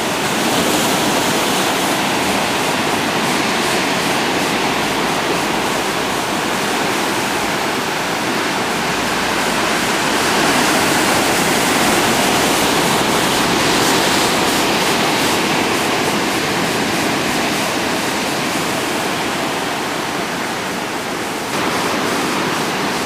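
Heavy ocean surf breaking and washing over black volcanic rocks, a constant rushing of water that swells a little midway and steps up slightly near the end.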